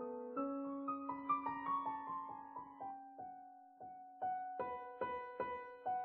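Solo piano playing a slow, gentle original piece: a run of single notes stepping down in pitch over the first three seconds, fading softer, then evenly repeated notes that come in louder again about four seconds in.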